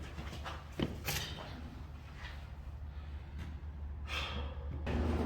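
Quiet room tone with a steady low hum, broken by a faint click about a second in and a few soft swishes.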